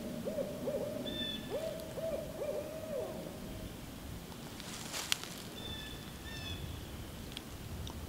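Barred owl hooting a rhythmic series of notes, each ending in a downward slur, with the last one drawn out, over the first four seconds.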